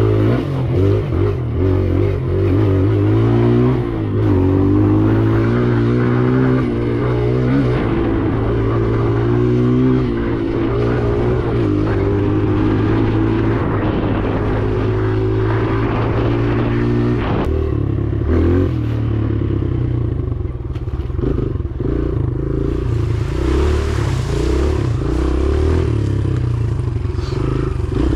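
Kawasaki KLX dirt bike's single-cylinder four-stroke engine under way, its pitch climbing and dropping every couple of seconds as it is revved up and backed off. After about seventeen seconds the throttle goes choppier, with short on-off blips.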